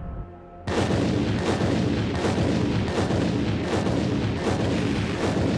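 Demolition charges detonating in the reinforced-concrete columns of a parking garage during a building implosion: after a brief lull, a rapid string of sharp blasts breaks out under a second in and keeps going.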